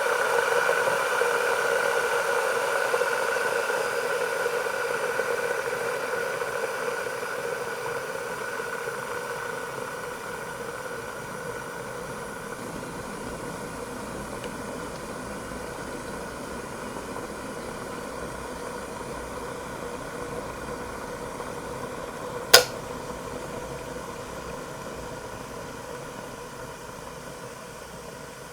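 Electric kettle heating water at the boil: a steady rushing noise that slowly fades. Around 22 seconds in comes a single sharp click, typical of the kettle's automatic switch cutting off, after which the water settles down.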